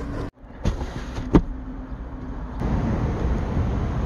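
A sharp knock and then a louder thump as cardboard boxes are set into an SUV's cargo area, followed by steady outdoor background noise.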